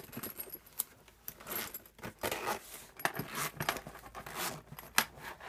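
Zipper of a Smiggle hardtop pencil case being pulled open around the case in several short stretches, with a few sharp clicks, the sharpest near the end.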